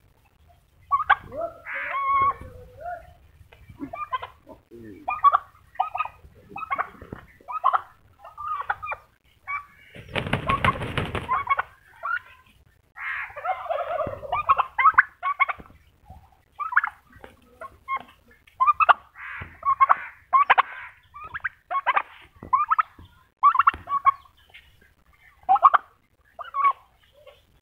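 Domestic turkey toms calling over and over in short, repeated notes, a call every second or so, with one longer, noisier burst about ten seconds in.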